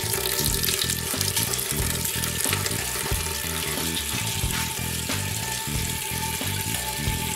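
A thin stream of wort pouring from a brew pot's spigot into a plastic funnel and glass carboy: a steady hissing splash of liquid, over background music with a steady beat.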